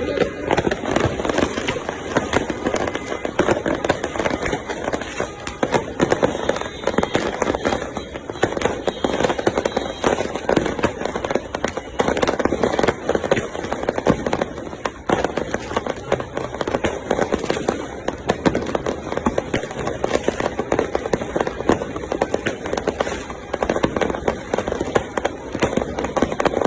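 Fireworks going off in a dense, continuous barrage of crackling pops and bangs.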